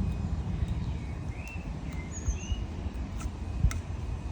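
A few short bird chirps over a low, steady rumble, with two sharp clicks a little past three seconds in.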